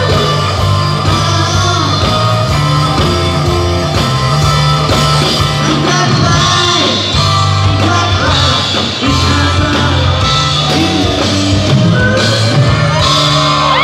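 Live rock band playing: a male lead singer over electric guitar, bass guitar and drums.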